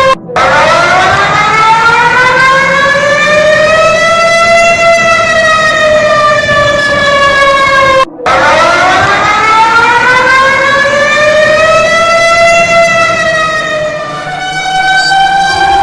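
Warning siren wailing, its pitch sweeping slowly up and then down. It cuts out briefly and restarts near the start and again about halfway. Near the end a different steady chord of several tones takes over.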